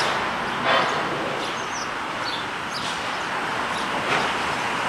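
Steady outdoor street noise of traffic and wind, with a few short bird chirps and a brief louder rush of noise less than a second in.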